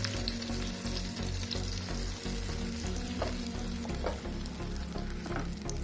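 Tomato, capsicum and cashew paste sizzling steadily in hot oil in a non-stick pan while it is stirred with a silicone spatula, with a few light scrapes and ticks.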